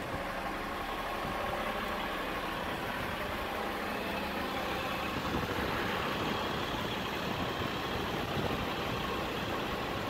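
Diesel engine of a Dennis Elite 2 refuse truck idling steadily.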